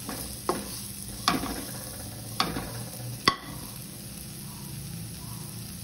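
Onions, red capsicum and spices sizzling in oil in a kadai while a spatula stirs them, scraping and knocking against the pan four times in the first three and a half seconds; after that the sizzling goes on alone.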